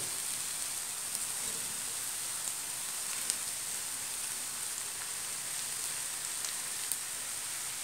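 Chopped onions and masala-stuffed brinjals frying in oil in a nonstick pan: a steady, gentle sizzle with a few small ticks of spattering oil.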